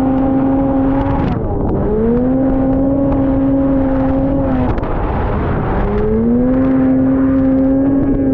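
Two-stroke engine of a 1979 Ski-Doo Blizzard 7500 snowmobile running at high, steady revs. The throttle is let off twice, about a second in and again near the middle, and the engine climbs back up to the same pitch each time, over a steady rushing noise.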